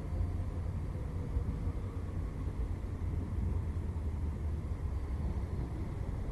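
Outdoor city ambience: a steady low rumble of road traffic and trams, mixed with wind buffeting the microphone.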